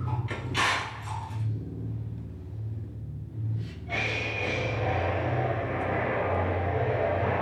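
Dance-performance score built from low rumbling textures: a deep drone throbbing about once a second, with a few sharp hits near the start. At about four seconds a wide rushing wash with a high held tone swells in over it.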